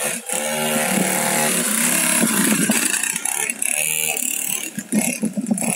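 Small engine of a child's mini dirt bike running as it is ridden, a buzzing drone whose revs dip and pick up again a few times.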